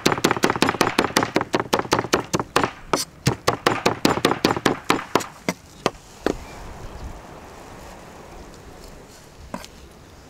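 Cleaver chopping spit-roasted chicken meat on a wooden cutting board: rapid, even knocks of the blade on the wood, about six a second, stopping about six seconds in. One more single knock near the end.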